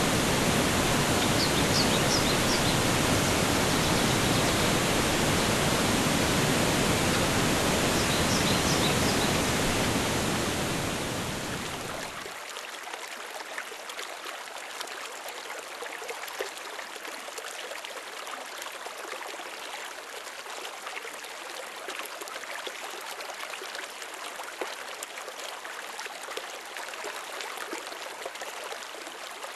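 Rushing water: a loud, even full rush like a waterfall for the first dozen seconds, then it fades to a quieter, lighter trickling stream with small splashes and no deep rumble.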